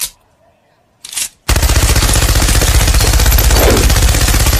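A short noise about a second in, then a machine gun firing rapidly and continuously from about a second and a half in.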